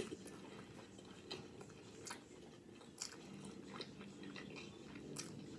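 Soft, close chewing of a mouthful of burrito in a whole wheat wrap, with faint wet mouth clicks scattered through it, the sharpest right at the start.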